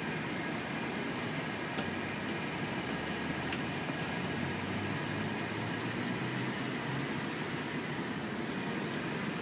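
Steady outdoor background noise with a faint low hum through the middle and one sharp click about two seconds in.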